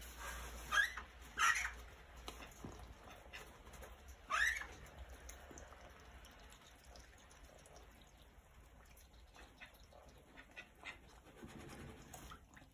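Grey call ducks calling: three short, loud calls in the first five seconds, the third sweeping upward in pitch, followed by faint scattered clicks.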